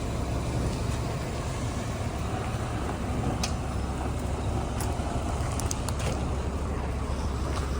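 Doosan DX300LC-5 excavator's diesel engine running steadily, with a few light clicks around the middle.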